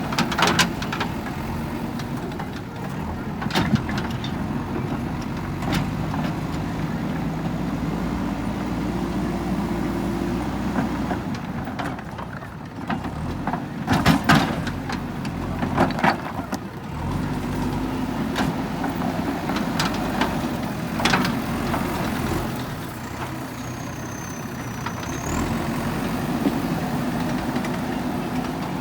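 JCB backhoe loader's diesel engine running under working load, its pitch stepping up and down as the hydraulics work. Over it come repeated sharp clanks and knocks of the bucket handling stones, the loudest about halfway through.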